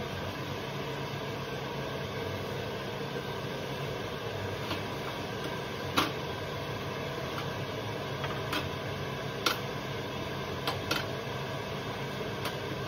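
Steady mechanical hum of a small shop kitchen, with scattered light clicks and taps from food and trays being handled at a stainless steel counter during falafel sandwich-making.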